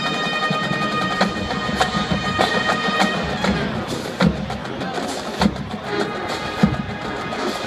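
Marching band playing: brass holds sustained chords over the drumline for about the first three and a half seconds, then the horns drop away and the percussion carries on with sharp drum hits.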